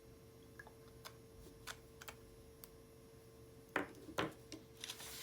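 Pelikan M205 fountain pen writing on paper: faint scattered ticks of the nib on the sheet, with two louder taps near the end, over a faint steady hum.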